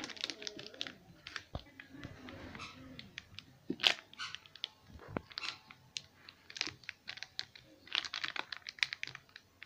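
Knife cutting through a tray of set semolina halwa lined with aluminium foil: irregular clusters of crackles and clicks as the blade crunches through and scrapes and crinkles the foil, with one sharper click about four seconds in.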